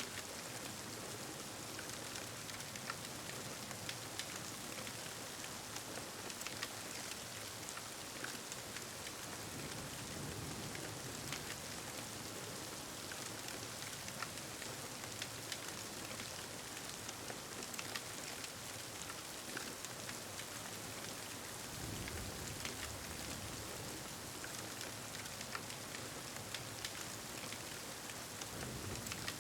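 Steady rain ambience with scattered small crackles, and a soft low rumble of thunder about ten seconds in and again for several seconds from about two-thirds of the way through.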